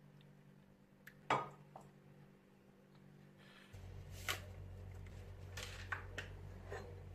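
Kitchen handling sounds: a single sharp knock about a second in, then, over a low steady hum, several short crinkles as a plastic sachet of chocolate sauce powder is squeezed out into a stainless steel pot.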